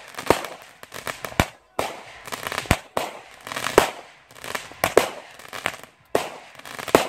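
Aerial fireworks firing in quick succession: sharp bangs of shells launching and bursting, roughly one or two a second, with hiss between them.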